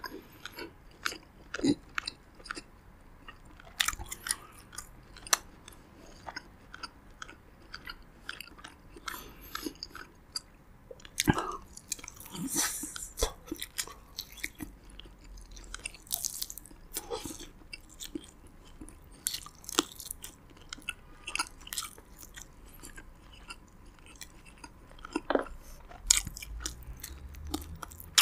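A person chewing roasted pigeon meat and hand-fed rice, with frequent short wet smacks and clicks of the mouth and a few louder bites.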